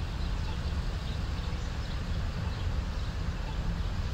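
Outdoor street ambience: a steady low rumble with faint, short high chirps scattered through it.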